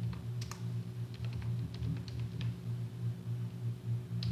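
Typing on a computer keyboard: a quick run of separate keystrokes over the first two and a half seconds, a pause, then more keystrokes near the end, over a steady low hum.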